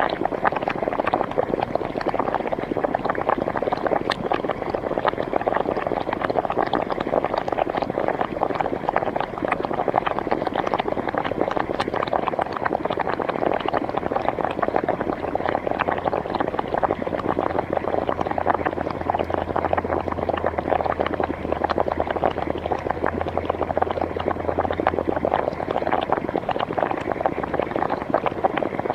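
Hot spring water bubbling: a steady, dense bubbling and popping with no let-up.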